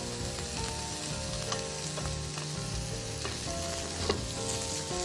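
Shrimp-stuffed morel mushrooms and bamboo shoots frying in oil in nonstick pans, a steady sizzle with a few small crackles and one sharper click about four seconds in.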